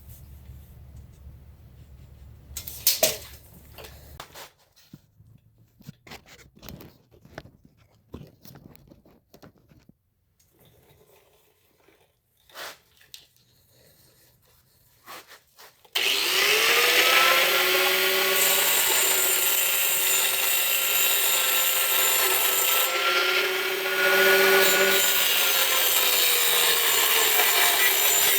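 A few light clicks and taps of handling, then just over halfway through an electric power tool starts up and runs steadily through a cut: a motor whine over a harsh cutting hiss, the whine's pitch sagging slightly as the tool is loaded.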